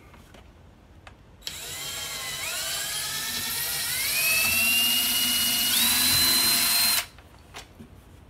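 Cordless drill pre-drilling a screw hole through the back panel of a wall cabinet. The motor whine starts about a second and a half in, climbs in pitch in steps as it speeds up and gets louder, then cuts off suddenly near the end.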